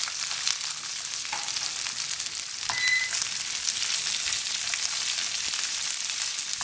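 Diced bell peppers and onion sizzling in hot olive oil in a nonstick frying pan, a steady hiss with many small crackles, as a silicone spatula stirs them.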